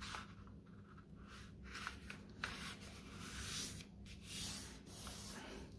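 A sheet of letter-size paper being folded and its crease pressed flat by hand: faint rubbing and rustling of paper under the fingers in several short strokes.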